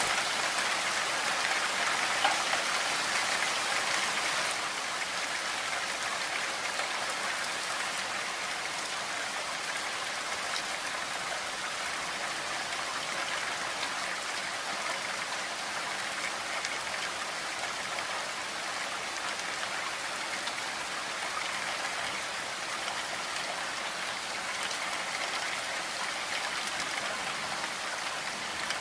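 Heavy rain falling steadily, a dense even hiss of drops, a little heavier for the first few seconds.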